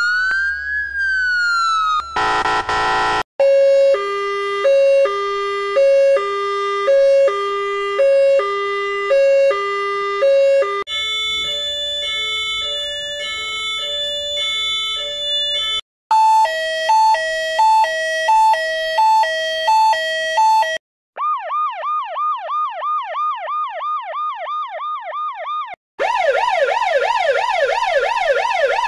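A run of different ambulance sirens, one after another: the end of a rising and falling wail and a short harsh blast, then three two-tone hi-lo sirens at different pitches, the last one higher and faster. Then comes a yelp sweeping about three times a second, and near the end a faster, louder yelp.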